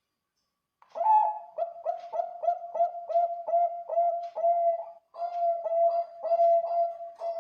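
Zebra dove (Bangkok-strain perkutut) singing its cooing song. It is a run of short, quick coos, about three to four a second, starting about a second in. After a brief break near the middle come slightly longer notes.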